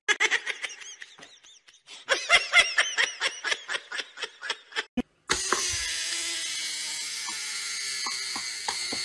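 Rapid run of laughter, about four to five quick pitched calls a second, then a steady buzzing whir with a few clicks from about halfway through.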